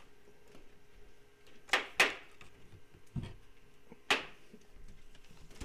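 Cardboard blaster boxes being handled on a tabletop: a few sharp cardboard clacks and scuffs, a pair about two seconds in and another near four seconds, over a faint steady hum.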